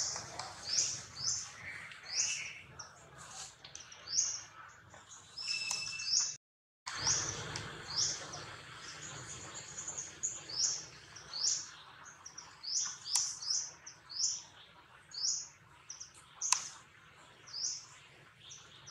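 A bird repeating a short, high chirp over and over, roughly one or two a second, over soft outdoor background noise.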